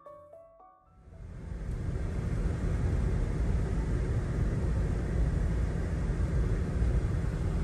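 Steady road and engine rumble inside a moving car's cabin, fading in about a second in.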